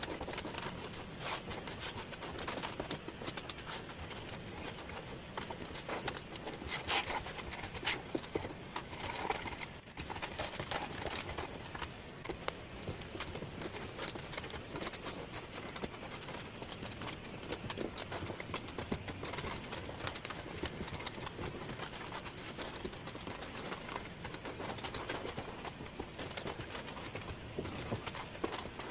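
Thin wooden jigsaw puzzle pieces clicking and rattling against each other and the table as hands spread and sort them. It is a dense, continuous patter of small clicks.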